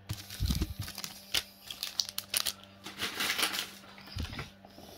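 Pokémon trading cards being handled by hand: quick clicks and taps of card against card, a crinkly rustle about three seconds in, and a few dull knocks near the start and near the end.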